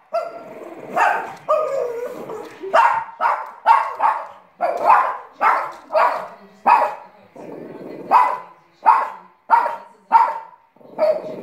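Small Shih Tzu barking at the television over and over, short high yaps about every half second, with a brief pause a little past the middle.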